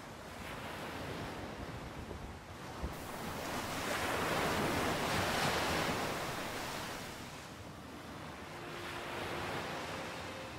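Sea surf washing on the shore: a wave swells to a peak about halfway through and drains away, and a smaller one follows near the end.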